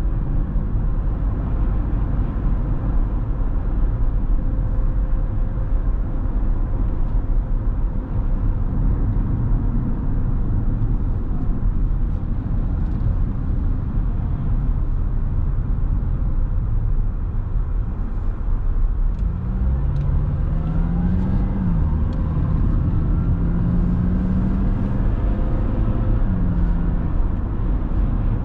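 Car driving on the road, a steady low rumble of tyres and engine. About two-thirds of the way in, an engine speeds up, its pitch climbing, dropping back at a gear change and climbing again.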